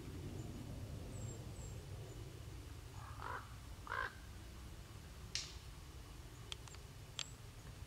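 A crow cawing twice in quick succession midway through, over a low steady rumble, followed by a few sharp clicks.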